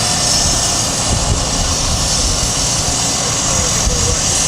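Steady, loud engine noise of track-repair machinery running, with a constant hiss over a low rumble.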